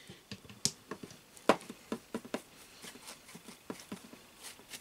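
Scattered light taps and clicks from a foam paint brush working against a foil-tape-covered paper mache form and from handling the form, with one sharper tap about a second and a half in.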